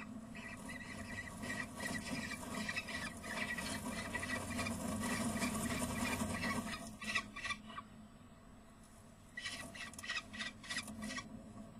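Peregrine falcon chicks begging at feeding time: rapid, high, squealing calls in two bouts, a long one that stops about three-quarters of the way through and a shorter one near the end.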